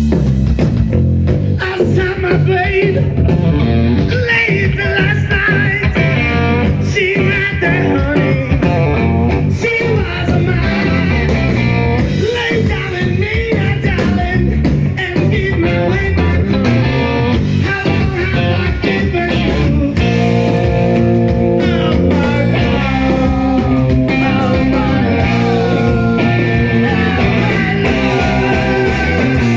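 Rock band playing live, with electric guitar over bass and drums.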